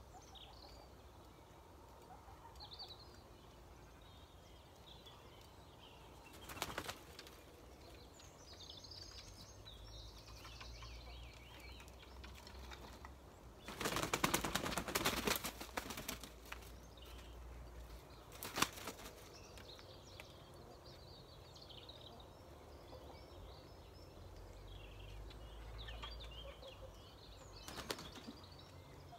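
Chickens flapping their wings as they shift about on roosting branches in a tree, loudest in a flurry of about two seconds around halfway. Shorter bursts come earlier and later, the last near the end as one hen flies down. Birds chirp faintly throughout.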